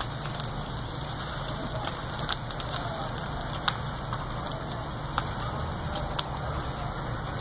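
A burning house crackling: sharp cracks and pops over a steady rushing noise, with one crack about halfway through louder than the rest.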